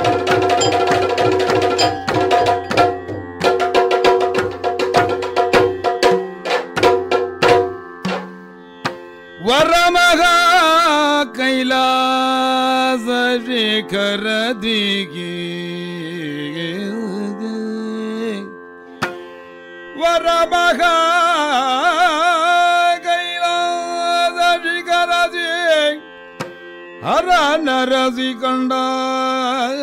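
Yakshagana music: quick drum strokes over a steady drone for about the first eight seconds, then solo singing by the Bhagavata over the drone, in long, wavering, ornamented held notes with a couple of short breaks.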